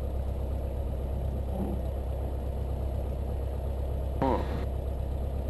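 Cessna 172's piston engine and propeller running steadily at low power on the ground, a constant low drone heard from inside the cabin.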